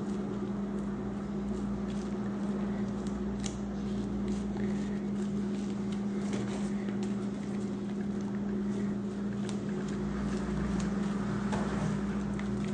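A steady low hum, unchanging throughout, with faint scattered crackles and ticks of hands pressing damp potting soil into a pot.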